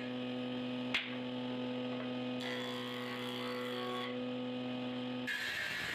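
Electric motor of a combination woodworking machine with a table saw, running without cutting: a steady hum. There is a single sharp knock about a second in.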